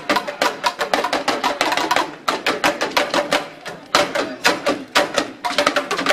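Ensemble of dùndún talking drums, hourglass drums beaten with curved sticks, playing a fast, dense rhythm of strokes.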